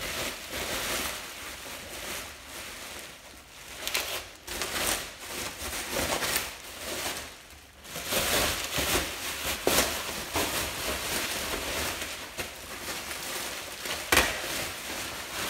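Bubble wrap crinkling and rustling as it is pulled and worked off a compound bow, with a few sharp crackles among the steady rustle.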